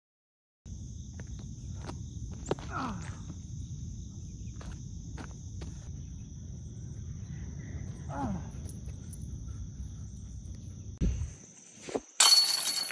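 Outdoor ambience: a steady low rumble of wind on the microphone under a steady high-pitched insect drone, with a few faint clicks. Near the end, a sharp thump and then a short burst of loud, harsh noise.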